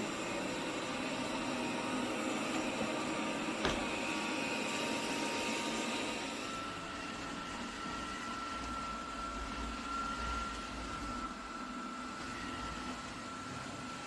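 A BPMIO robot vacuum running as it drives around the room, with a steady mechanical whirr. There is a single sharp click a few seconds in. The pitch of the whirr changes about halfway through.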